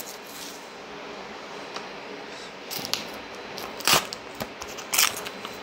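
Plastic shrink-wrap film being cut and peeled off a small cardboard box: quiet crinkling with scattered small clicks. A single sharp knock about four seconds in as a small knife is set down on a hard desk, and another click about a second later.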